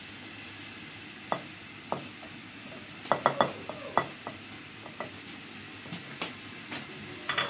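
Pieces of green chilli, garlic and ginger tipped from a plate into a wooden mortar: a scattering of small sharp knocks as they drop in and the plate taps the rim, several in quick succession about three seconds in, over a steady background hiss.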